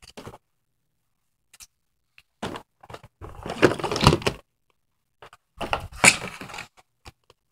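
Christmas wrapping paper being ripped and crumpled off a gift box, in two bouts of tearing and rustling: one from about two and a half seconds in, the second near the end.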